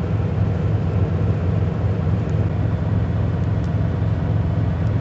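Semi truck's diesel engine running steadily, a loud, even low rumble heard inside the sleeper cab.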